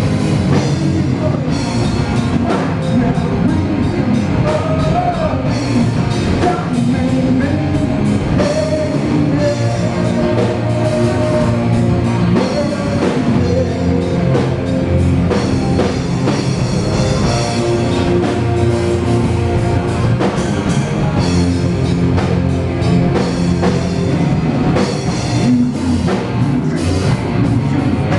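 Live rock band playing loud and without a break: a drum kit keeping a steady beat under guitar and keyboards.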